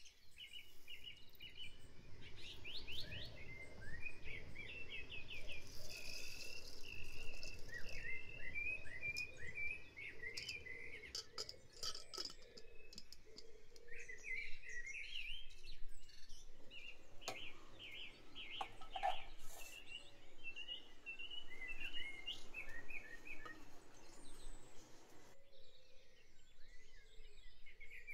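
Recorded dawn chorus: many songbirds chirping and trilling together, with a few faint clicks among them.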